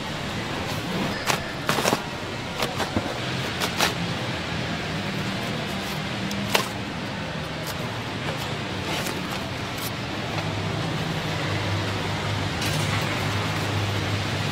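A long knife cutting into and prying open a whole jackfruit: a few sharp knocks and clicks in the first four seconds and one more about six and a half seconds in, over a steady low hum.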